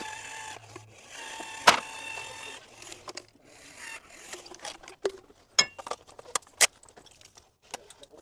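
Wooden door frame being handled into its opening: two drawn-out squeaky scrapes as it slides, with a sharp knock partway through the second, then a run of light knocks and clicks as it is shifted into place.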